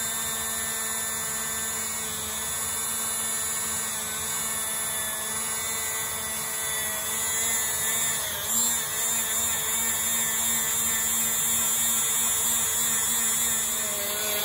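Dremel rotary tool running steadily at about 6,000 RPM with a brass wire brush bit, buffing rubbing compound on an aluminum motorcycle cylinder head. Its whine dips briefly in pitch about eight seconds in as the brush is pressed to the metal.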